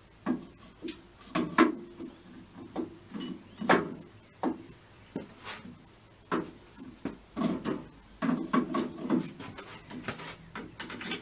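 Irregular knocks, clinks and scrapes of metal parts and hand tools, some sharp and loud, as a starter motor is fitted and bolted onto a 1964 VW bus engine.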